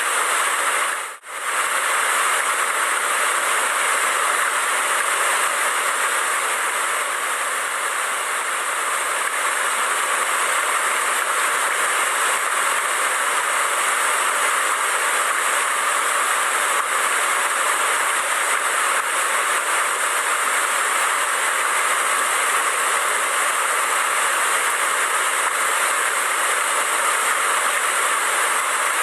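Waterfall rushing steadily, a continuous wash of falling water, briefly cutting out about a second in.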